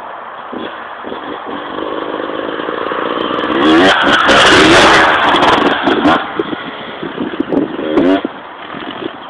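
Motocross dirt bike engine revving, growing louder over a few seconds to a loud peak about four to five seconds in, then fading, with a couple of shorter revs near the end.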